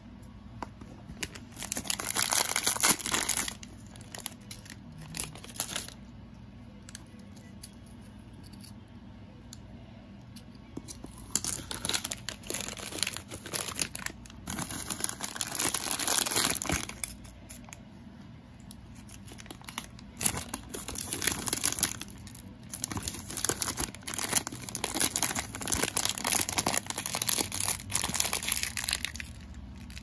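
Thin plastic wrapper crinkling and tearing as it is opened and handled by hand, in three long stretches of crackling with quieter pauses between.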